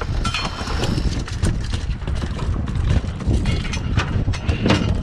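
A freshly landed Spanish mackerel thrashing on a boat deck: irregular knocks and thuds over a steady low rumble.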